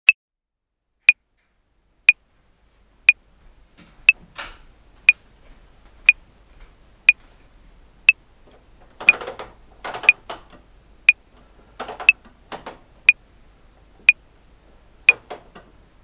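Metronome clicking once a second, 60 bpm. Under the clicks, from about three seconds in, a top-loading washing machine on a 60° cotton wash runs with a low hum and irregular swishes from its drum.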